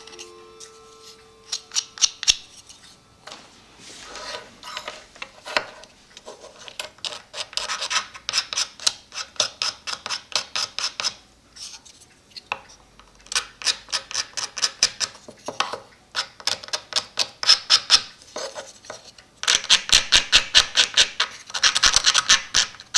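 A knife blade scraping old paper and glue off a cuckoo clock bellows. It goes in quick, sharp strokes, several a second, in runs of a few seconds with short pauses between.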